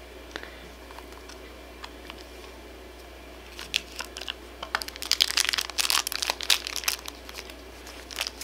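Small plastic toy backpack clicking open, then the crinkly plastic wrapper inside being torn and crumpled, a dense burst of crinkling from about three and a half seconds in that lasts about four seconds.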